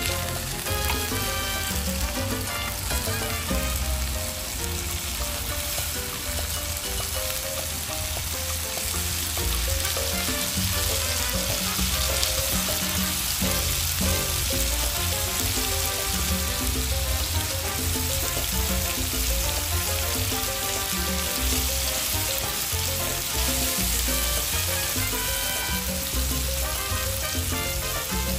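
Marinated beef short ribs (galbi) sizzling steadily on a hot grill pan, with background music underneath.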